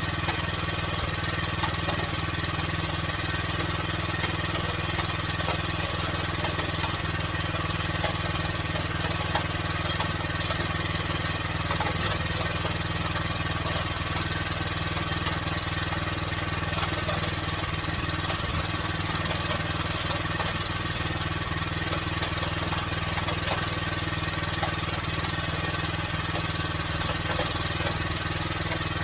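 The gas engine of a Norwood Frontier OS23 portable bandsaw mill runs at a steady, unchanging speed, with a few light clicks over it.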